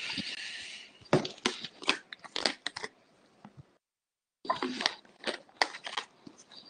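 Irregular crackling and clicking, with a short hiss over about the first second and a brief dropout to silence a little past the middle.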